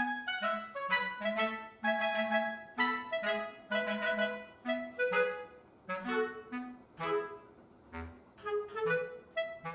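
Background music: a light tune of short, quickly fading notes over a bass line.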